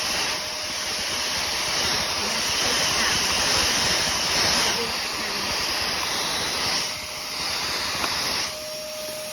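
Hoover Commercial PortaPower canister vacuum running, a steady rushing hiss of its motor and suction that rises and falls slightly, going quieter for the last second or so.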